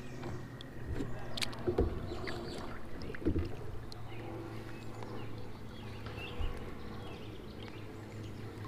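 Occasional light knocks and clicks of fishing gear in a kayak on the water, over a faint, low, steady hum.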